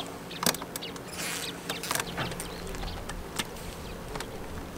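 Scattered small clicks and light rustling at irregular intervals, over a faint steady hum.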